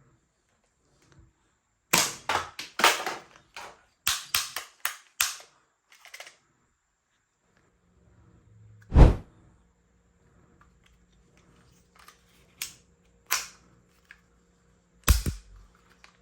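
Toy gun being worked and fired: a quick run of sharp plastic clicks and snaps, then single louder snaps, with one heavy thump about nine seconds in.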